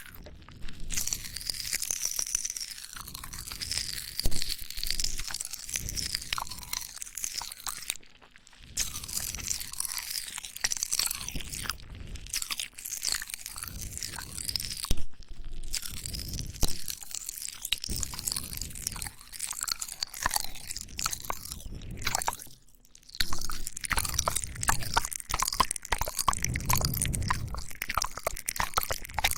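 Popping candy crackling in a mouth, a dense run of tiny rapid crackles mixed with wet mouth sounds. It breaks off briefly twice.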